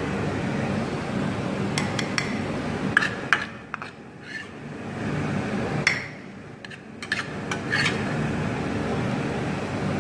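Slotted spatula scraping and clicking against a frying pan, a few irregular scrapes and knocks as the last of the scrambled egg is pushed out, over a steady low hum.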